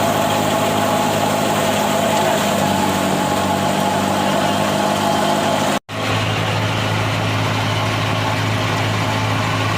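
A heavy machine's engine running steadily. The sound drops out abruptly for a split second about six seconds in, then the engine hum returns with a stronger low note.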